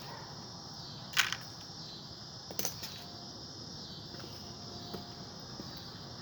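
Steady high chirring of insects, crickets, with two brief sharp clicks, one about a second in and one about two and a half seconds in.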